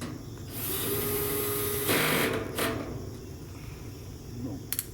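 Cordless drill/driver running for about two seconds, driving a screw to secure a part, then stopping; a few light clicks near the end.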